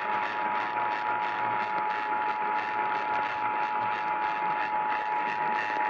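Emergency Alert System attention signal: two steady tones sounded together as one unbroken alarm, announcing an emergency alert. It comes over broadcast radio with a steady static hiss under it.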